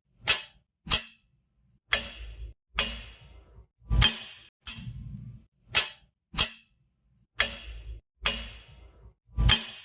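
Heavy metal clanking: about eleven sharp metal impacts at uneven intervals, several followed by a brief low rumble, with a short pause about two-thirds of the way through.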